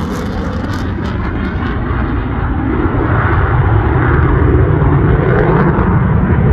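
Jet noise from a Boeing EA-18G Growler's twin General Electric F414 turbofans in flight, a loud, steady rumble that grows a little louder about halfway through.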